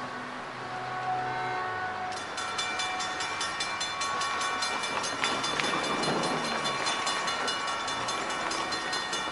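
Railroad grade-crossing warning bell starting up about two seconds in and ringing in a steady repeating rhythm, the signal that a train is approaching. A broad rush of noise swells and fades around the middle.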